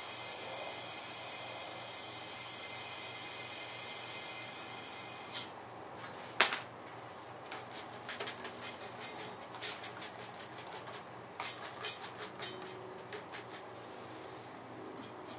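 Steady high hiss of water being forced through an air chuck into a collapsed inner tube inside a radial tyre. About five seconds in it cuts off sharply with a click. A run of irregular light clicks and taps follows.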